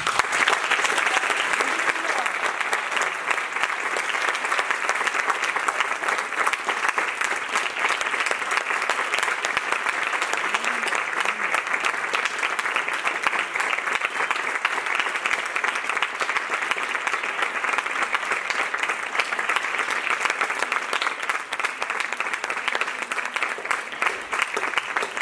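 Audience applauding steadily, a dense patter of many hands clapping at an even level throughout.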